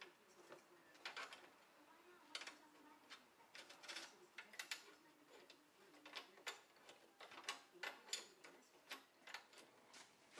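Faint, irregular metallic clicks and clinks of the aluminium tool rest and its banjo being fitted and tightened on a wood lathe's bed, a couple of clicks a second in uneven clusters.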